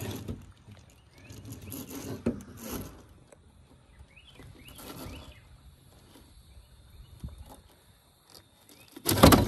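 Irregular rustling and scuffing as a spotted gar is held down in a mesh landing net on a boat deck, in uneven bursts with a louder one near the end.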